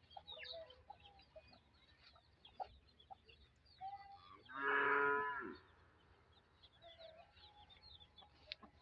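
A cow mooing once, a single pitched call lasting about a second midway through, with faint bird chirps behind it.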